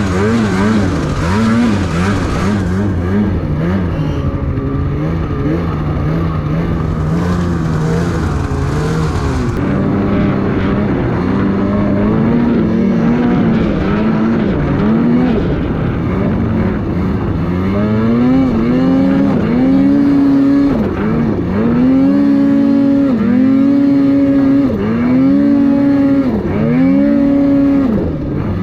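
Snowmobile engine running under way, its pitch rising and falling with the throttle. In the second half it revs up to a held pitch and drops back over and over, about once every two seconds.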